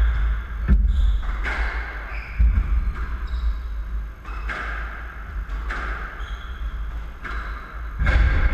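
Squash ball struck by rackets and hitting the court walls during a rally: about eight sharp knocks, roughly one a second, each ringing briefly in the court, over low thuds of players' feet on the wooden floor.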